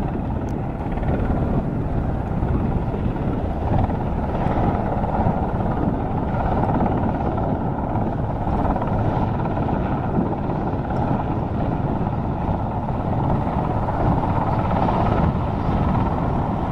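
Sikorsky CH-124 Sea King helicopter flying low, its twin turboshaft engines and five-blade main rotor giving a loud, steady, continuous rush.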